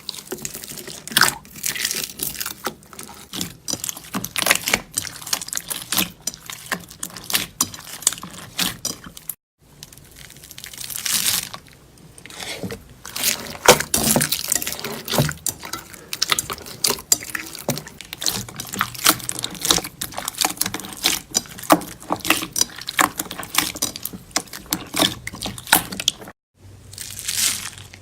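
Slime being squeezed and pressed by hand: a dense run of wet clicks, pops and crackles, broken off twice by brief silences.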